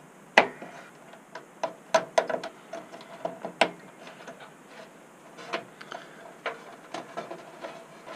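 Irregular small clicks and taps as power-supply cables and their plastic connectors are handled, routed and plugged inside a steel PC case, with the sharpest click about half a second in.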